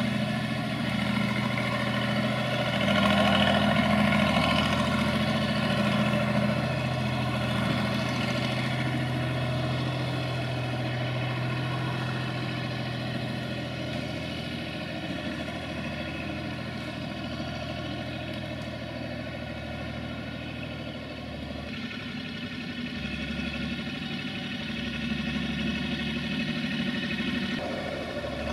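SAME Laser 110 tractor's diesel engine running steadily under load as it skids logs, a little louder for a few seconds near the start.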